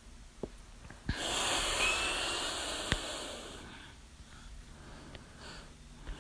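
A person hiccuping: several short, sharp hics. About a second in, one hic opens a loud, noisy breath that lasts about two and a half seconds and then fades.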